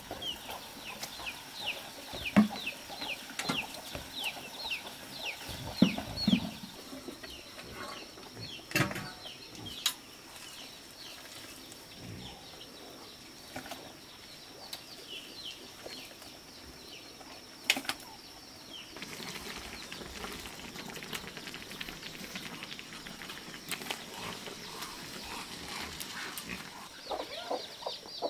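Farmyard sounds without speech. For the first several seconds birds chirp quickly, a fast run of short high falling notes, with a few sharp knocks and clatters in between and one more knock later. From about two-thirds of the way in an even rushing noise sets in, and near the end chickens cluck.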